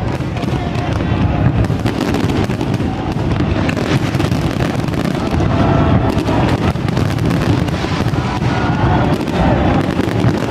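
Aerial fireworks going off in a dense, continuous barrage of bangs and crackles with no pause.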